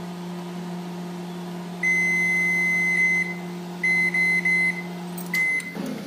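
IFB microwave convection oven's keypad beeping as it is set and started: one long beep about two seconds in, a quick run of short beeps a second or so later, and one more short beep near the end. A steady low hum runs under them and stops near the end.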